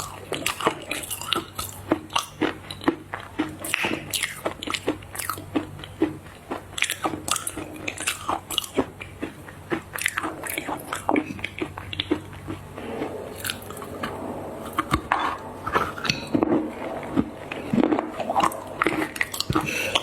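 Close-miked eating: a person biting into and chewing crunchy chocolate treats, with a steady run of sharp crackling crunches and, in the second half, softer chewing sounds.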